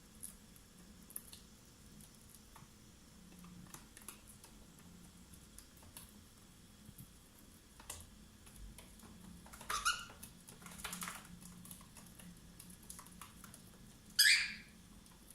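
Pet cockatiels making small clicking and tapping sounds, with a short chirp about ten seconds in and a louder, sharp call near the end.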